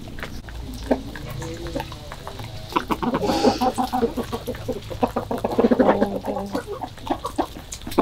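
Chickens clucking while they peck grain off concrete, beaks tapping the ground in short clicks. The clucking is soft at first and grows louder and busier from about three seconds in until near the end.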